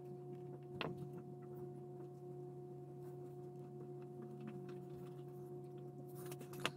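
Quiet handling of small plastic model-car parts and a glue tube: scattered light ticks and taps, with two sharper clicks, about a second in and near the end, over a steady low electrical hum.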